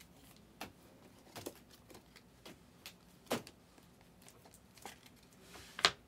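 Light clicks and taps of clear plastic trading-card holders being handled, about half a dozen scattered over the few seconds, with a short rustle and the loudest click near the end.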